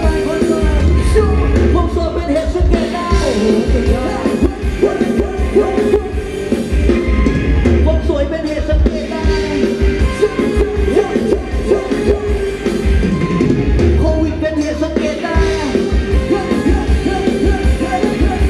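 Live Thai ramwong dance music from a band, a singer over a heavy, steady bass beat.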